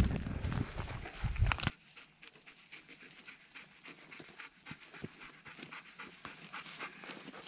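Close, heavy panting with rumbling wind on the microphone, cutting off abruptly about a second and a half in; then faint, scattered crunching footsteps on dry grass and rock as hikers and a dog walk up.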